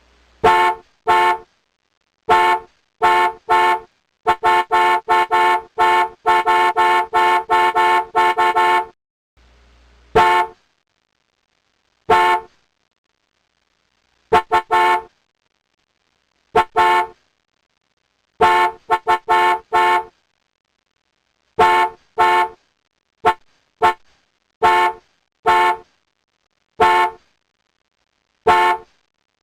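Car horn honking in short blasts with silence between them, some single and some in quick pairs or triples. There is a fast run of rapid beeps from about four to nine seconds in.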